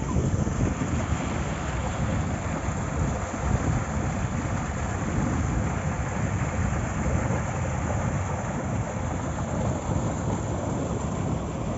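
Steady rushing of water pouring through an opened fishpond sluice gate, mixed with wind rumbling on the microphone.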